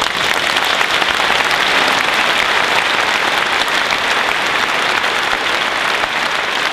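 Audience applauding: a dense, steady clatter of many hands clapping.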